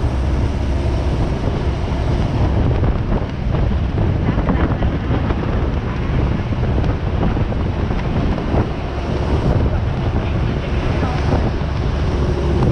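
Wind buffeting the microphone over a steady low rumble, as from travelling at speed in the open.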